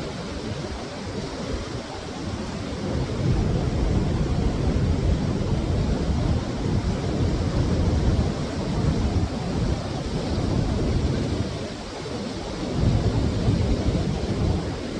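Steady rushing of a waterfall, heaviest in the low range, with a low rumble from wind on the microphone that swells and fades every second or two.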